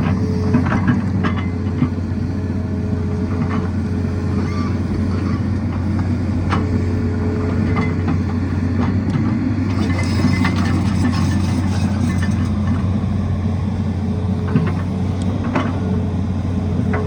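Tata Hitachi excavator's diesel engine running steadily under work, with scattered short knocks and clatter over the engine.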